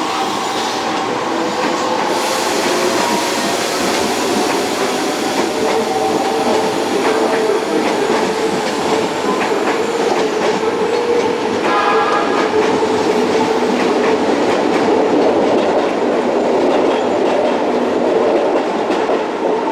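Electric commuter train running at close range: a loud, steady rumble of wheels on rails with a steady motor whine, and a short pitched signal about twelve seconds in.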